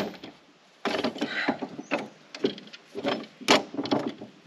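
A string of uneven metal clanks and knocks as a caravan's corner stabiliser leg is handled and worked by hand. The leg is the broken one, called a 'dicky leg', with a rattle about a second in.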